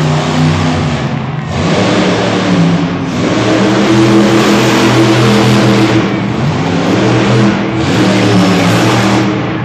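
A 1,600-horsepower monster truck's engine revving hard in repeated throttle bursts as it drives and jumps, with short lifts off the throttle about every one and a half to three seconds.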